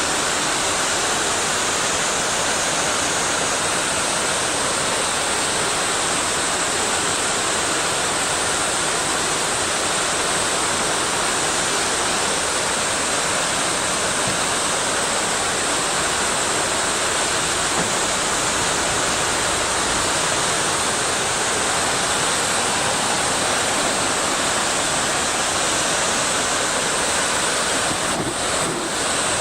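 Fast-flowing river water rushing steadily, with a slight dip in level near the end.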